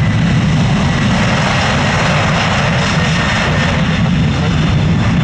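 Airbus A330 jet engines running loud and steady as the airliner rolls out along a wet runway after landing, spoilers up, with a rushing hiss over a deep rumble.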